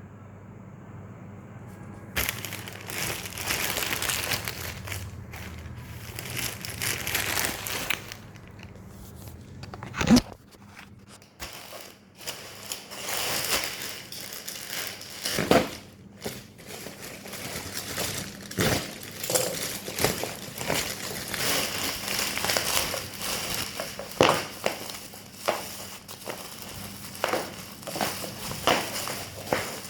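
Packaging being handled and unwrapped by hand: crinkling and rustling, with scattered clicks and a sharp knock about ten seconds in.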